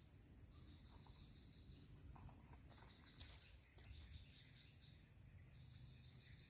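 Steady high-pitched chorus of insects, such as crickets, with a low rumble underneath.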